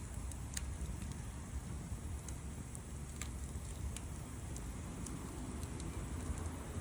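Wood fire burning, with scattered sharp crackles and pops over a steady low rumble.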